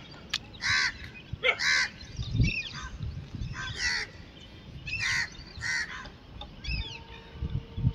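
Crows cawing, short harsh caws repeated about once a second. A steady humming tone comes in near the end.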